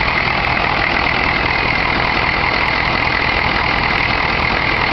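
1993 Chevy 6.5-litre turbo diesel V8 idling steadily and smoothly, its former rough idle and miss cured by replacing a broken valve spring.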